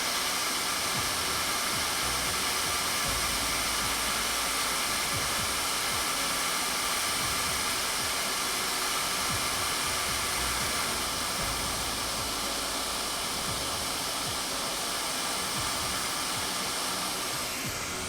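Hot-air rework station blowing a steady hiss onto a logic board to melt the solder under a chip being reflowed back into place.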